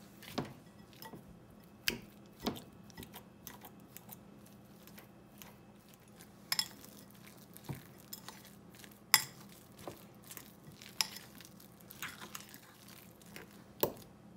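Metal fork mashing boiled potatoes in a glass bowl: irregular clinks and scrapes of the fork against the glass, the loudest about nine seconds in.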